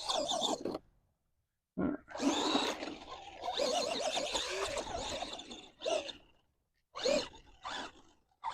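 Arrma Gorgon RC monster truck's stock brushed electric motor running in several short bursts, its whine wavering up and down with the throttle, broken by brief moments of total silence.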